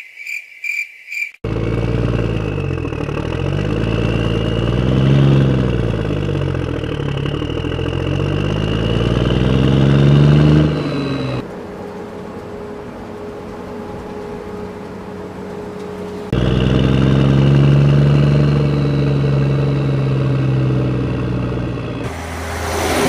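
Heavy vehicle engine sound effect running with its pitch rising and falling, after about a second of rapid repeated beeps at the start. About halfway through it drops for several seconds to a quieter steady hum, then the engine comes back, and a short rising hiss comes near the end.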